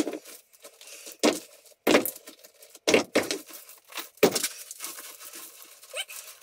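Chunks of broken concrete slab being picked up by hand and dropped onto a rubble pile, rock knocking on rock. About half a dozen sharp knocks come at uneven intervals, with scraping between them.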